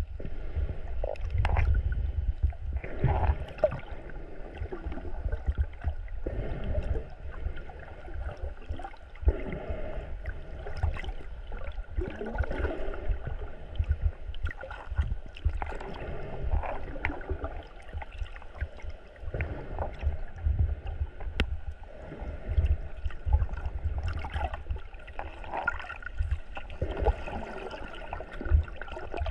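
Water gurgling and sloshing around a camera held underwater, with a steady low rumble, swells of noise every few seconds and scattered faint clicks.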